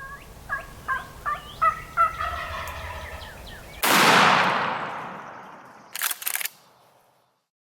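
Wild turkey calling: a series of short yelping notes running into a rapid warbling gobble. Then a single shotgun blast goes off suddenly and echoes away over about two seconds. A quick rattle of sharp clicks follows near the end.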